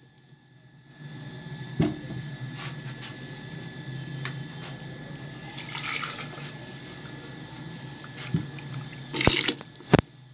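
Blended wet masala paste being poured from a blender jar into a pot of water holding mutton liver and lung pieces: a steady pouring, splashing wash of liquid, with a few short knocks and a louder clatter near the end.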